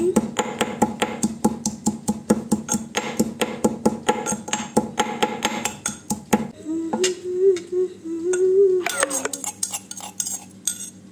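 Pestle pounding coriander leaves in a mortar: rapid knocks, several a second, for about six and a half seconds. Then a person hums a short wavering tune, followed by a few softer knocks and scrapes of the pestle near the end.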